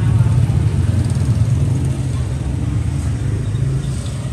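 Steady low rumble of a running engine, easing slightly near the end.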